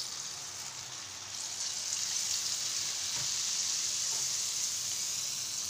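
Nei appam batter (rice flour and jaggery) poured from a ladle into hot oil in a kadai, sizzling as it fries. The sizzle swells about a second and a half in as the batter spreads and the oil bubbles up around it, then holds steady.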